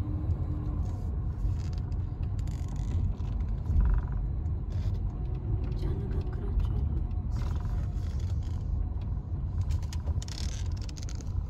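Car driving slowly, a steady low rumble of engine and road heard from inside the cabin.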